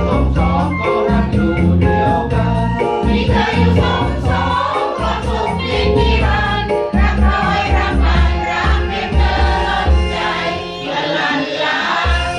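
A choir singing a Thai pop-style song in unison over an instrumental backing with a steady bass beat; the voices grow fuller about three seconds in.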